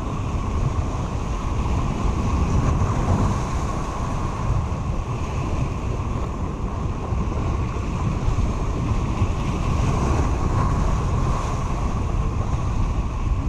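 Ocean surf breaking and washing over the rocks of a jetty, mixed with wind buffeting the microphone: a steady, loud rush.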